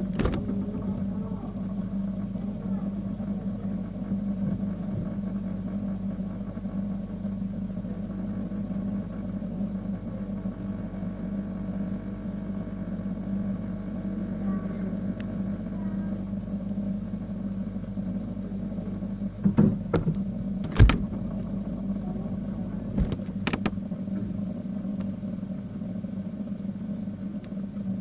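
A steady low machine hum, with a cluster of sharp knocks about twenty seconds in and two more a few seconds later.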